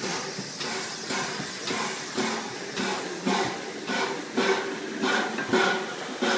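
Three-cylinder Peppercorn A1 steam locomotive 60163 Tornado's exhaust chuffing slowly, a soft beat about twice a second over a steady hiss of steam. The beats grow louder toward the end.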